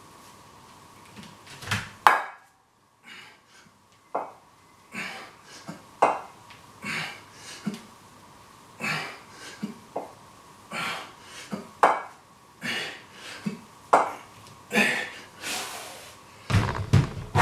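Repeated double kettlebell swings with two 16 kg kettlebells: sharp exhalations and light clinks of the bells in a steady rhythm, about one rep every two seconds, with a heavier knock near the end as the bells are set down.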